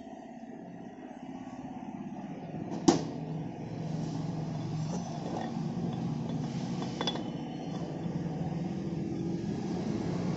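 Metal clinks as a weld-repaired steel jaw screw is fitted into a lathe dog chuck: one sharp clink about three seconds in and a lighter one about seven seconds in. A steady low machine hum runs underneath and grows louder.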